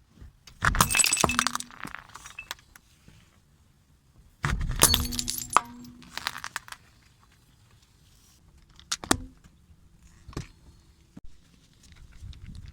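Car tyre rolling over and crushing a brittle object: two bursts of crunching, cracking and clinking, the second starting a little under halfway through, followed by a few single cracks near the end.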